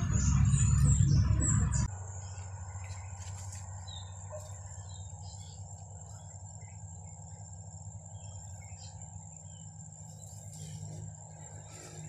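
A loud low rumble that cuts off suddenly about two seconds in. Then insects keep up a steady high-pitched buzz, with birds chirping now and then.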